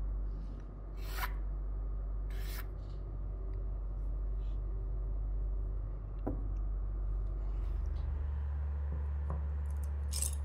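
A pointed metal hand tool scraping a black acetate eyeglass temple in two short strokes, about one and two and a half seconds in, over a steady low hum. Later comes a sharp click and one more short scrape near the end.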